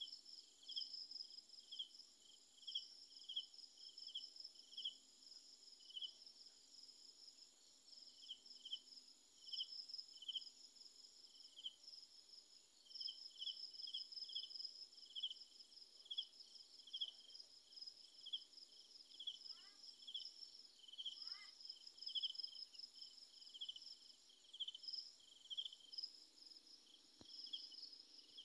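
Night insects chirping faintly: a steady run of short, high chirps, about two a second, over a fainter continuous high trill.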